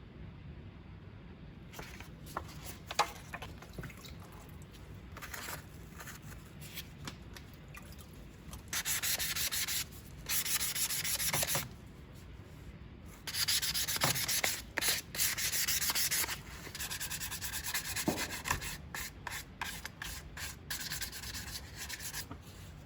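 Sandpaper rubbing over a part by hand, in stretches of hissing strokes lasting a second to a few seconds, after some light clicks of handling.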